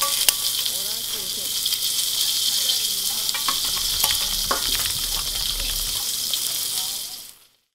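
Meat sizzling in hot fat in a pan: a steady hiss with scattered pops and crackles, and a sharp click just after the start. It fades out near the end.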